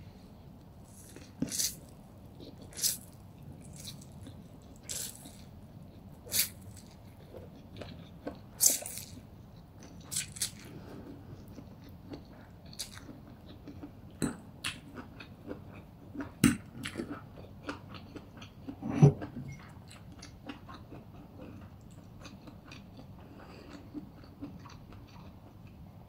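Close-miked chewing and crunching of crispy glass noodles (funchoza) with chicken and vegetables: wet, crisp mouth sounds, busiest in the first half and thinning out toward the end. One louder thump comes about three-quarters of the way through.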